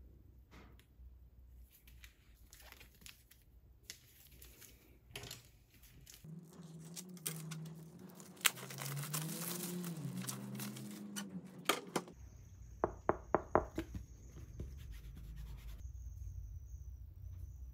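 Plastic shrink-wrap being torn and crumpled off a pack of plastic chopping boards, loudest for several seconds in the middle, followed by a quick run of light clicks as the plastic boards are handled.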